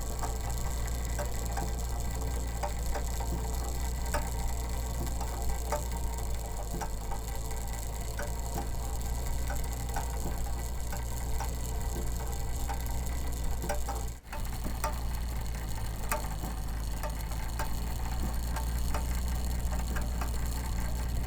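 A running clockwork mechanism ticking and clicking lightly, its gear sounds carried through a coiled-spring contraption into a Quality Street tin that serves as a resonator, over a steady low hum. The sound drops out very briefly about two-thirds of the way through.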